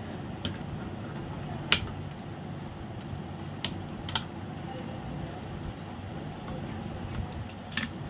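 Sharp plastic clicks as a blade is pried along the seam of an AC remote's plastic case and its snap latches pop loose: about five separate clicks, the loudest about two seconds in, over steady low background noise.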